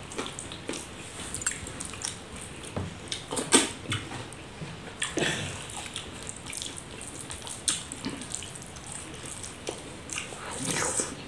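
Wet squishing of curd rice being kneaded and squeezed by hand on a banana leaf, along with eating sounds of lip smacks and chewing. These come as irregular clicks and smacks, the sharpest about a second and a half in and again about three and a half seconds in.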